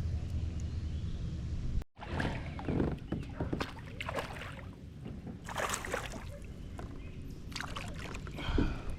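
A steady low rumble, then, after an abrupt cut about two seconds in, irregular knocks, clicks and water sloshing as gear is handled on a kayak.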